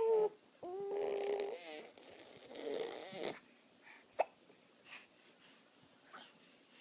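A baby vocalizing: a short pitched coo about a second in, then a breathy, noisy sound, then a few faint mouth clicks.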